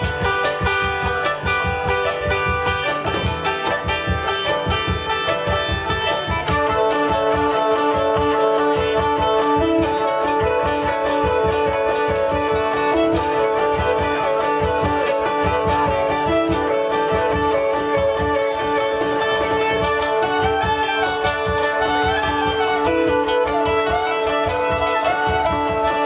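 Folk band playing an instrumental tune on fiddle, a plucked string instrument and cajon, the cajon keeping a steady beat. About six seconds in a steady hurdy-gurdy drone joins and holds.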